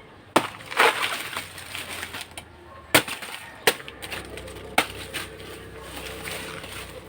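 Bolo knife chopping into a saba banana trunk: a handful of sharp, separate cuts spread over several seconds, one of them drawn out into a longer crunch.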